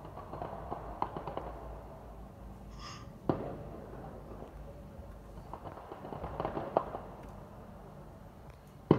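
Fireworks popping and crackling overhead. There are scattered pops, a sharp bang after about three seconds, a flurry of crackles later on, and a loud bang right at the end.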